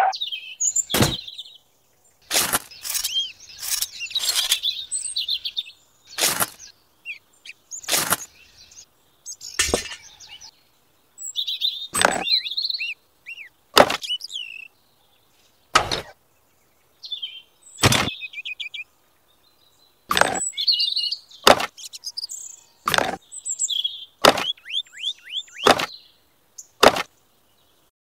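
A string of sharp clicks or taps, roughly one every one to two seconds, over small birds chirping and twittering.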